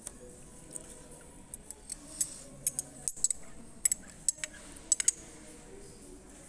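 A table knife scraping and clicking against the inside of a small ceramic pot: a quick, irregular run of sharp clicks and scrapes through the middle.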